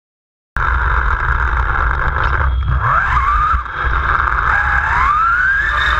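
The brushless electric motor of a 1/10-scale Kyosho Lazer RC buggy whines, rising in pitch twice as the car speeds up, over a steady low rumble. The sound starts suddenly about half a second in.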